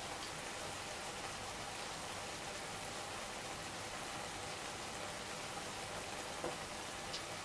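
Fried eggs in a hot frying pan sizzling faintly and steadily as they finish cooking on the pan's leftover heat, with a couple of tiny pops near the end.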